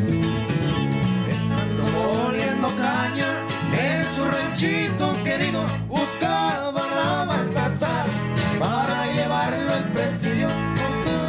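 Small norteño group playing a corrido live: two acoustic guitars strumming over an electric bass, with a man singing lead from about two seconds in.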